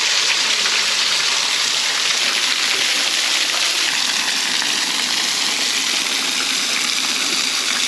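Waterfall pouring, heard from right up close: a loud, steady rush of falling water.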